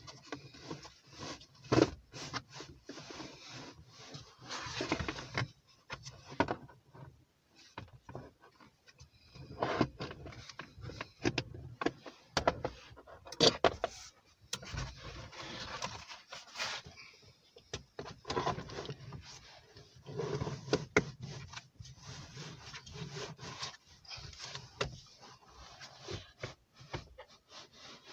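Toyota Yaris hatchback's plastic centre console cover being pulled up and worked off over the handbrake lever: irregular scraping and rubbing of plastic trim, broken by sharp clicks and knocks.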